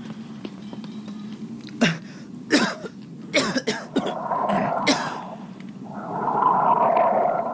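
Creature sound effects for the spider-legged severed head: several sharp wet cracks and squelches, then a raspy hissing gurgle.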